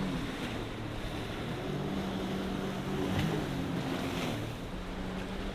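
Sea-Doo personal watercraft's engine running at speed, its note shifting a couple of times, over the rush of water spray and waves with wind on the microphone.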